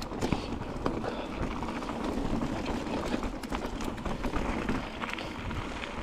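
A hiker's footsteps on a trail: irregular short steps over a steady low rumble.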